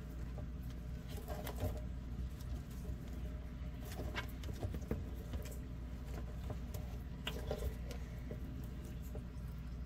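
Scattered light ticks and scratches of superworms crawling and American toads shifting on the floor of a plastic tub, over a steady low hum.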